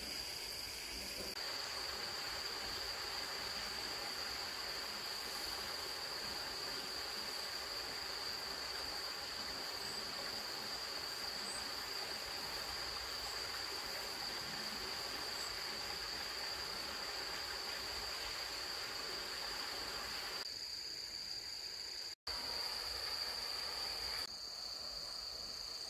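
Crickets trilling in one steady high continuous band over faint outdoor hiss, with a brief dropout near the end.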